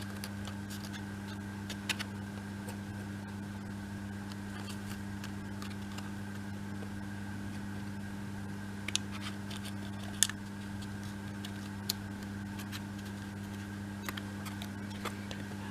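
A steady low electrical hum, with a few light clicks and taps as small laser-cut pieces are set and pressed into place.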